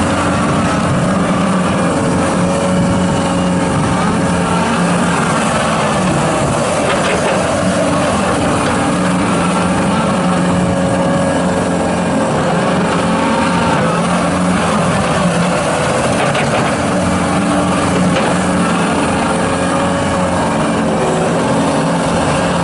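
John Deere 331G rubber-track skid steer loader's diesel engine running steadily, its pitch wavering a little up and down now and then.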